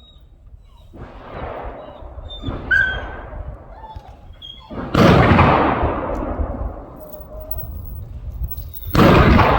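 Four gunshots, each ringing out with a long echo; the third, about five seconds in, is the loudest. Between them come short, high dog whines.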